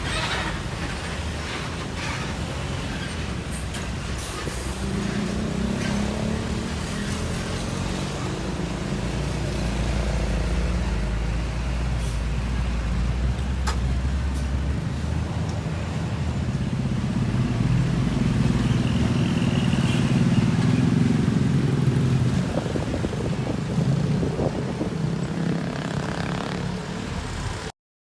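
Heavy trucks passing on a road, a steady low engine rumble that swells as vehicles go by, loudest a little past the middle. The sound cuts off abruptly just before the end.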